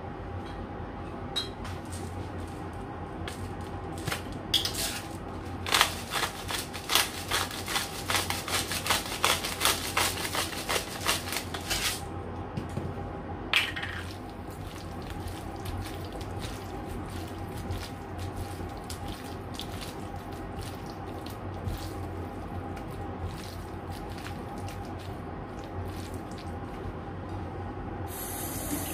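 Hands squishing and kneading raw chicken pieces with seasoning in a bowl: a dense run of quick wet squelches for several seconds, then sparser, softer ones, over a steady low hum. A tap starts running right at the end.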